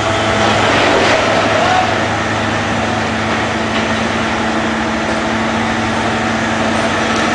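Truck-mounted mobile crane's engine running steadily with an even drone while the crane lifts.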